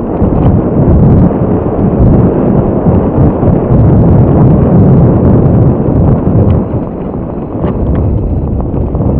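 Wind buffeting the microphone at downhill mountain-bike speed, a loud continuous rumble, mixed with tyre noise and the clicks and rattles of the bike jolting over roots and stones. It eases off after about six seconds as the trail turns grassy.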